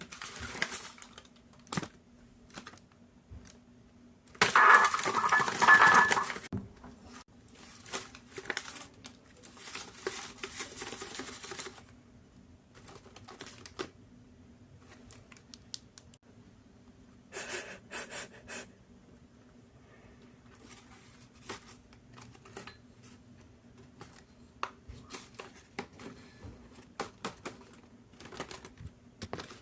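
Paper being handled: scattered light taps and clicks with short bursts of rustling and crinkling, the loudest rustle about four to six seconds in.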